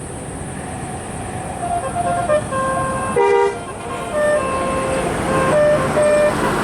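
Musical 'telolet' air horn playing a tune of short notes at shifting pitches, with one louder, fuller note about three seconds in.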